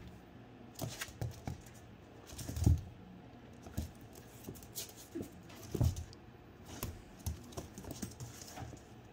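Australian Shepherd puppies' claws and paws clicking and scrabbling on a hardwood floor as they wrestle. The clicks and taps come irregularly, with a few louder thumps about a second in, near 3 seconds and near 6 seconds.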